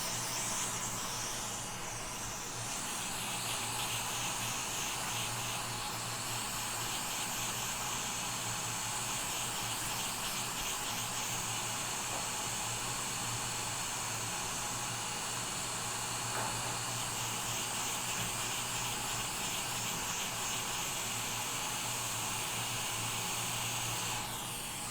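Hot-air rework station blowing a steady hiss of hot air onto the NAND flash chip to melt its solder and lift it off an iPhone 11 logic board, with a low steady hum underneath; the airflow stops just before the end.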